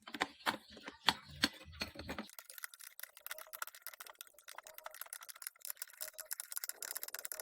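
Irregular light clicks and knocks, with some low thuds in the first two seconds, then thinner, denser clicking.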